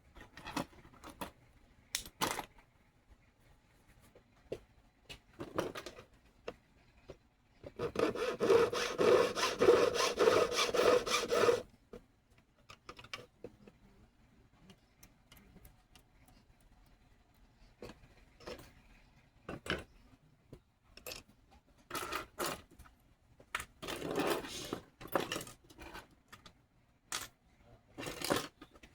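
About four seconds of rapid back-and-forth strokes of a jeweler's hand tool working metal, set among scattered small clicks and taps of bench work.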